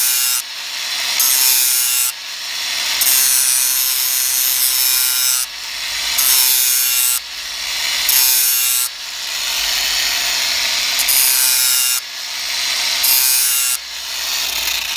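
Angle grinder sharpening the cutting edge of a Flymo rotary mower blade: a loud hissing grind under a steady motor whine, in repeated passes a couple of seconds long, each cutting off suddenly as the disc comes off the metal while the motor keeps running.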